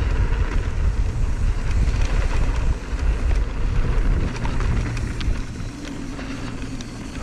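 Wind buffeting the microphone of a helmet-mounted action camera on a fast mountain bike descent, over a heavy rumble of tyres on the dirt trail with scattered rattles and clicks from the bike. The noise eases off over the last couple of seconds.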